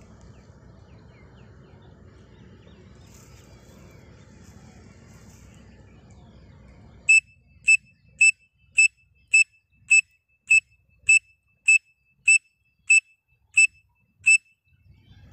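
Pen-cap whistle blown through cupped hands, imitating a grey francolin (teetar) call. About seven seconds in, a run of about thirteen short, high, piercing whistle notes starts, evenly spaced at a little under two a second, over a faint low rumble.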